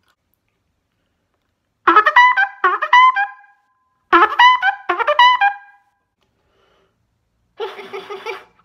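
Trumpet imitating a cartoon woodpecker's laugh: two quick phrases of rapid, bouncing notes starting about two seconds in. Near the end it starts a monkey imitation of fast, sputtering chatter.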